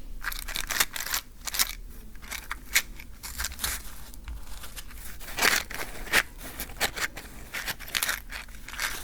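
Wooden matches handled close to the microphone: a dense, irregular run of small scratching, clicking and crinkly taps, with a few sharper clicks.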